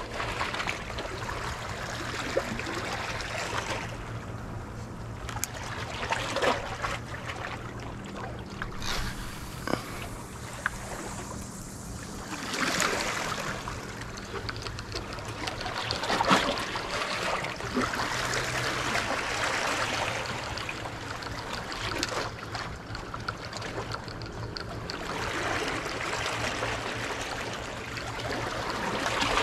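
Sea waves washing in and draining back along the shore, swelling every few seconds, with a faint steady low hum underneath.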